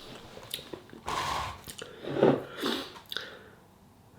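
A person chewing spicy food with wet mouth sounds, with a breath out about a second in.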